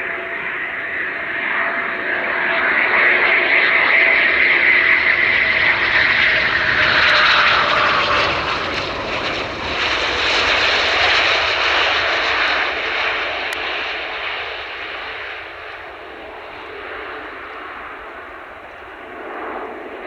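Eurofighter Typhoon jet passing close by. The engine noise builds, peaks with its whine dropping in pitch as it goes past, then fades away.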